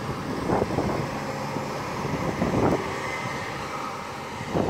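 Diesel engine of a low-floor city bus running as the bus passes close by and pulls away, a steady drone that eases off toward the end, with gusts of wind on the microphone.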